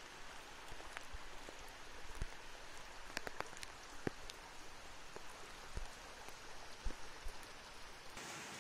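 Rain falling onto standing floodwater: a steady hiss with scattered sharper drops and splashes, and a few dull knocks in the second half.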